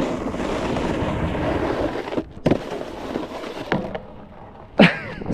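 Snowboard riding over snow: a steady scraping rush of the board for about two seconds, then a few sharp knocks, the loudest near the end.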